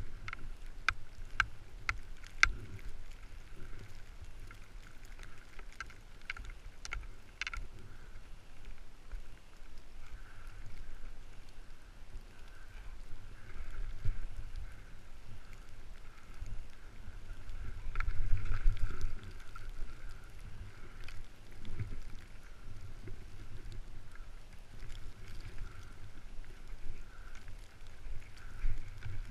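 Skis sliding and turning through deep powder snow, with a steady low rumble of wind on the camera's microphone. A run of sharp clicks comes in the first few seconds and again a few seconds later, and a louder whoosh swells about eighteen seconds in.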